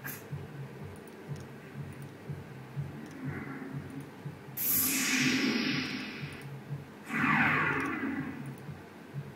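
Sound-effect samples previewed one after another in FL Studio: a loud hissing burst about four and a half seconds in that fades over a couple of seconds, then a second burst with falling sweeps about two seconds later, over a faint low rhythmic pulsing.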